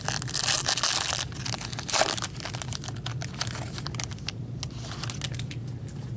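Foil wrapper of an Upper Deck Masterpieces hockey card pack crinkling and tearing as it is ripped open, loudest in the first two seconds or so. Lighter crinkles and clicks follow as the cards are slid out of the torn pack.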